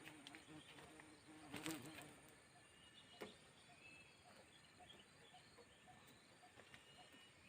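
Near silence with faint, scattered high chirps and a couple of light knocks, one about two seconds in and one about three seconds in. No chainsaw is running.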